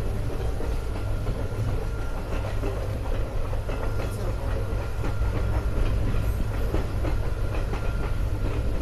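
Passenger express train running along the track: a steady low rumble of wheels on rails with irregular clicks and clacks from the coaches.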